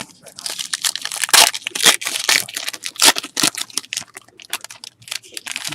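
Crinkling and tearing of a trading-card pack wrapper as a pack is torn open and handled, a dense crackle with many sharp snaps.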